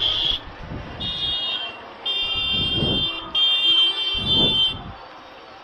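A high-pitched motorcycle horn sounding in four blasts, each longer than the last, over street traffic noise.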